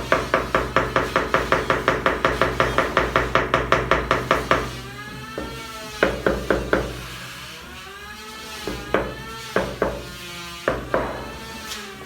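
Background music: a fast, even run of struck notes, about six a second, for the first four and a half seconds, then sparser notes with gliding tones.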